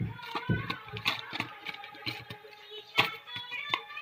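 Clicks and knocks of a plastic parts box full of small brass gas-stove fittings being handled, its lid being worked, with the sharpest knock about three seconds in.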